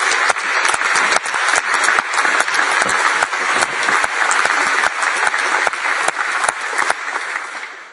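Applause from the members of the House, many people clapping together. It thins out and dies down near the end.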